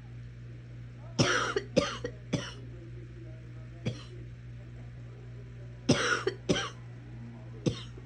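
A sick person coughing in short fits: a quick run of three coughs, a fainter single cough, a pair of coughs, then one more near the end.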